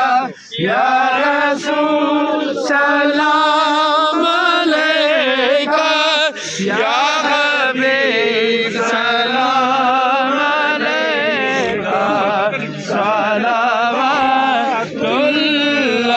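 A single voice chanting an Islamic devotional recitation (naat), with long, wavering held notes and short pauses for breath.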